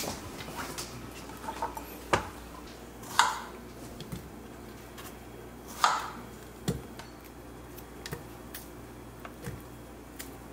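Kitchen food-prep clatter: scattered short knocks and taps of strawberries being cut on a plastic cutting board and dropped, with banana pieces, into a plastic blender cup. A few louder knocks come about two, three and six seconds in.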